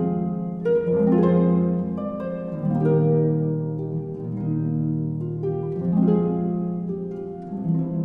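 Slow instrumental background music with held notes and chords, new notes entering every second or two.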